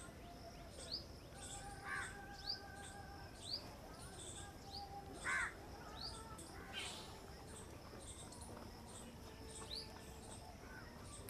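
Several birds calling: many short rising chirps, with a few louder, harsher calls about two, five and seven seconds in.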